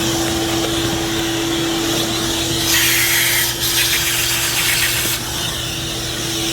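Vacuum motor running with a steady hum, sucking water out of an open copper water line that will not shut off. The suction hiss gets louder for about a second near the middle.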